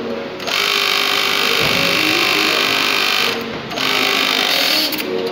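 ViBeMac V364.1 flat-bed chainstitch unit running at high speed, sewing stretch denim: a run of about three seconds, a brief pause, then a shorter run of about a second. Steady factory machine hum underneath.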